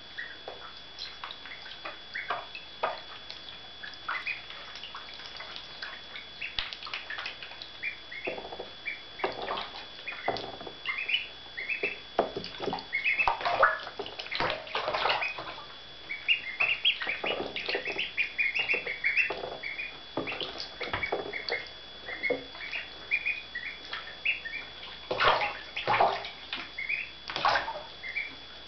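Seven-day-old ducklings peeping constantly in short high calls while swimming and diving, with water splashing and sloshing that is busiest about halfway through and again near the end.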